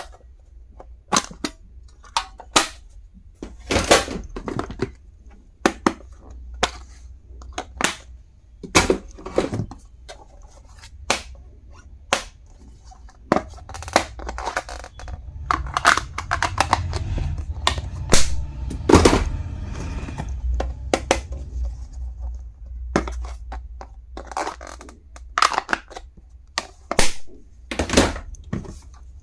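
Stationery items and their packaging being handled on a surface: irregular sharp clicks, taps and knocks, sometimes several in quick succession, over a low handling rumble.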